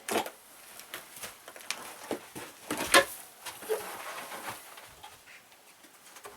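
Irregular sharp knocks and clatter of old wooden floorboards being pried up and handled as a shed floor is torn out, the loudest knock about three seconds in.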